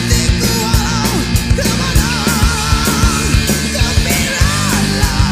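Rock music with a fast, steady drum beat and a sung melody.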